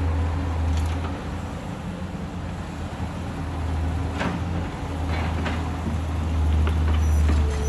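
Excavator engine running with a steady low drone that eases off early on and swells again near the end as it works, with a few scattered knocks.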